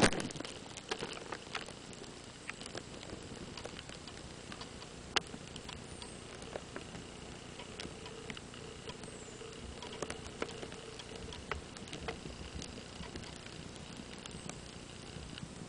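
Quiet forest ambience: faint, high-pitched bird calls, including a few short falling notes, over scattered light clicks and crackles.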